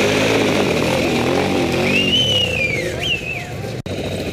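ATV engines running and revving as a quad churns through a mud pit, with the engine pitch wavering up and down. A high tone rises and falls twice in the second half.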